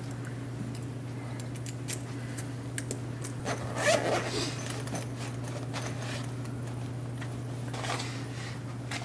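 A key turned in a small padlock gives a few light clicks, then the zipper of a fabric pouch is pulled open, loudest about four seconds in and again briefly near the end. A steady low hum runs underneath.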